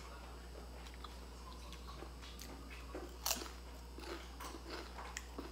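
Crunchy chewing of a crispy fried pastry (bánh chiên), a series of crackly crunches with the loudest about three seconds in.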